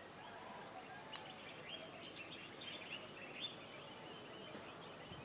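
Very faint background hiss with a few faint, short, high chirps between about one and three and a half seconds in.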